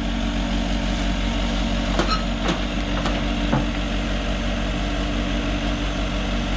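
Heavy-equipment engine running steadily at a constant speed, with a few faint short clicks between about two and three and a half seconds in.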